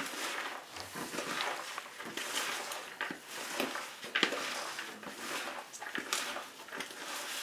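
Hands mixing a manty filling of finely chopped raw potato and onion with oil in a plastic bowl: irregular rustling, squishing strokes of the chopped mass.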